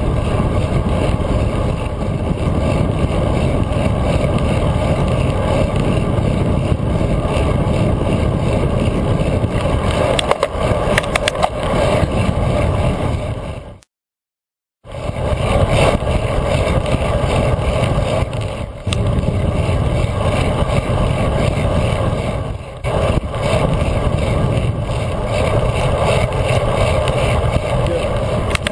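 Steady rush of wind over a bike-mounted camera, mixed with tyre noise on asphalt, from a road bike riding at speed. A few light clicks come about ten seconds in, and the sound cuts out for about a second midway.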